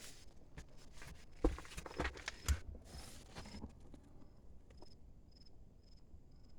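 Footsteps on stony ground: scattered light crunches and clicks, with two heavier steps about one and a half and two and a half seconds in. From about halfway, a faint high chirp repeats about twice a second.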